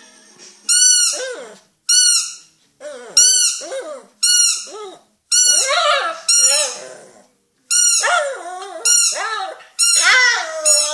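A squeaky dog toy squeezed about ten times, roughly once a second, each squeak a high piping note. After and over each squeak a dog answers with wavering whines that rise and fall in pitch.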